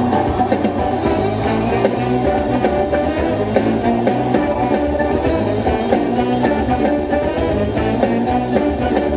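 Live rock music with guitar and drum kit playing through a car's aftermarket stereo (Pioneer AVH-4200NEX head unit, JL Audio speakers and two 10-inch JL Audio subwoofers), heard inside the car's cabin, with the volume being turned up.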